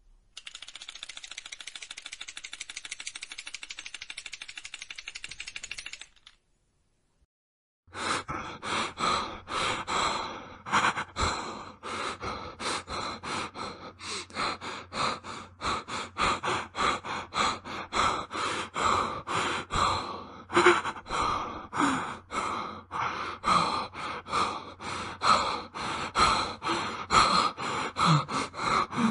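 Teeth chattering, a fast rattle of tiny clicks lasting about six seconds. After a brief pause, a man breathing in quick, frightened gasps, about two breaths a second.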